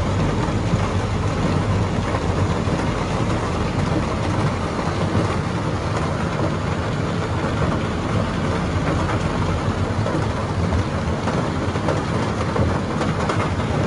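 Fast-flowing flash floodwater rushing along a city street: a steady, dense rushing noise with a heavy low rumble.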